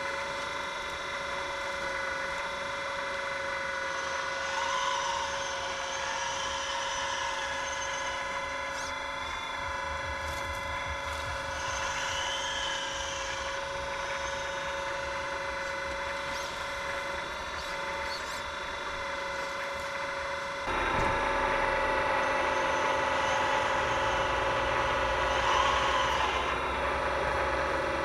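Electric drive motors and gearboxes of RC scale construction machines running with a steady whine, growing louder about three-quarters of the way through as more drive joins in.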